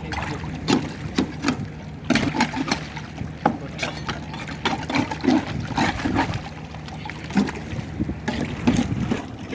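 An engine running steadily as a low drone, with irregular knocks and splashes on top.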